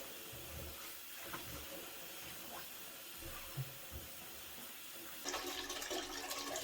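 Water being poured off a bowl of soaked black-eyed beans into a sink, a faint trickle that turns into louder splashing about five seconds in. The wash water is being drained to carry away the loosened bean skins.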